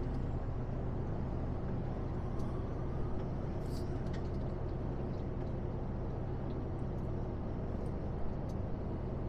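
Steady drone inside a lorry cab cruising on a motorway: the engine's low hum under tyre and road noise.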